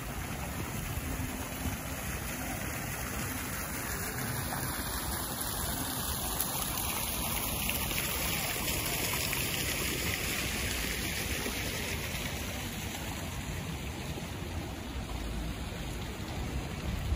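Small plaza fountain splashing into its basin: a steady watery hiss, loudest about halfway through as it is passed up close, then fading.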